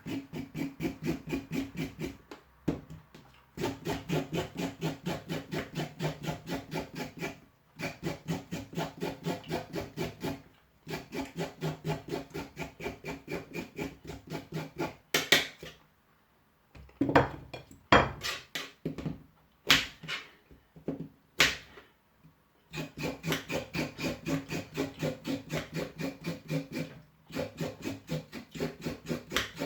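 A carrot being scraped clean in quick, rhythmic strokes, about four a second, in runs of several seconds with short pauses between them. A few sharp knocks come partway through.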